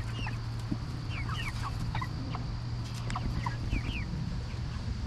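A flock of eight-week-old Cornish Cross meat chickens calling: many short, high peeps and chirps, some sliding in pitch, overlapping throughout, over a steady low hum.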